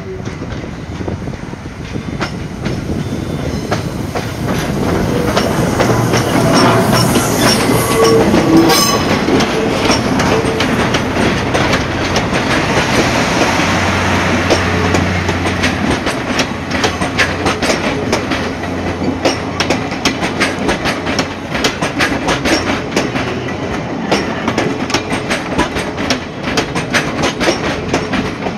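C57 steam locomotive hauling 12-series passenger coaches slowly through a station, getting louder as it approaches. Once the coaches roll close by, there is a steady run of wheel clicks over rail joints and points.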